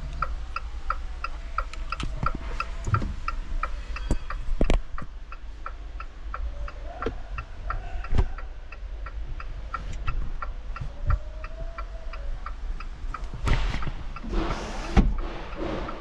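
Rapid, evenly paced electronic ticking from a car's dashboard, about three ticks a second, over a steady low hum. A few single knocks sound, and there is a short burst of rattling noise near the end.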